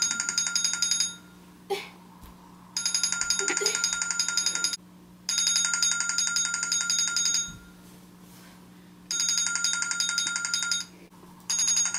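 A tablet's alarm ringing: a high, rapidly trilling ring-tone in repeated bursts of about two seconds with short gaps. It is the morning wake-up alarm going off.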